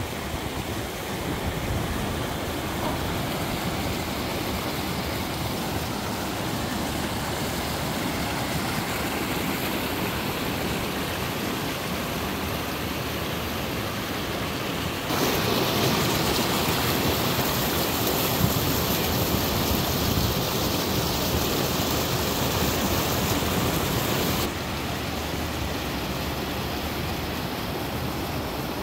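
Alpine mountain stream and waterfall rushing steadily. About halfway through it turns louder and hissier for roughly ten seconds, then settles back to the earlier level.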